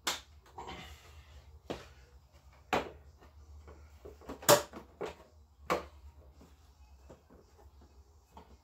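Plastic body panels of a Honda Vision scooter knocking and clacking as they are pulled and worked loose by hand, in several sharp knocks, the loudest about four and a half seconds in.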